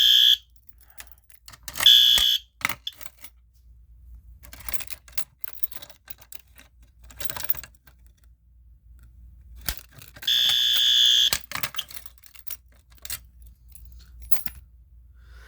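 A System Sensor P2R fire alarm horn strobe sounding in short, irregular blasts: a brief one at the start, another about two seconds in, and a longer one of about a second near the ten-second mark. Scattered clicks and knocks fall between the blasts.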